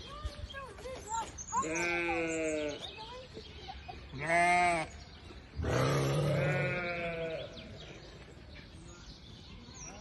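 Sheep bleating: three long, wavering bleats starting about two seconds in, the last the longest.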